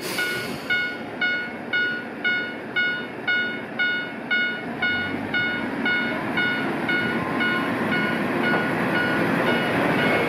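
A level-crossing bell dings about twice a second and fades over the last few seconds. Under it a Tenryu Hamanako Railway TH2100 diesel railcar's engine and wheels build into a rising rumble from about four seconds in as the railcar pulls away, with a short hiss right at the start.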